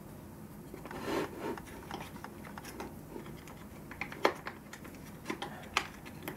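Hands handling small plastic objects: soft rubbing about a second in, then a few short sharp clicks from about four seconds on.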